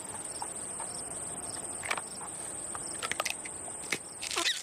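Steady high-pitched drone of insects over a faint outdoor hiss. A few faint clicks about three seconds in come as an eggshell cracks, and a short chirping call sounds near the end.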